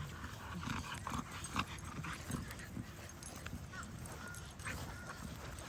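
Young bully puppies giving a few faint, short whines, with light clicks and rustling as they move about.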